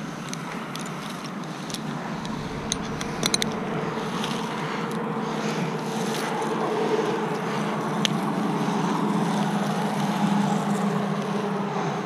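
An engine running steadily at an even pitch, with a quick cluster of light metallic clinks about three seconds in and another click near eight seconds.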